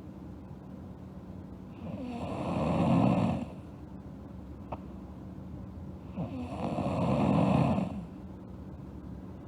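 A sleeping girl snoring: two long snores, each under two seconds, about four and a half seconds apart, with quieter breathing between them.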